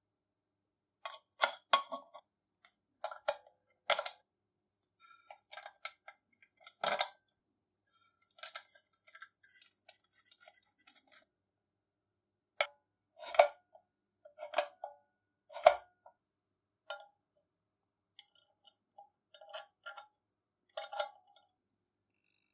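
Small metal lamp parts clicking and clinking as they are handled and fitted by hand against an aluminium lamp housing: scattered sharp taps and clinks with short pauses between them.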